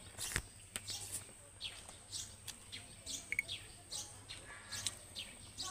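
Close-up eating sounds: scattered wet mouth clicks and smacks while chewing food.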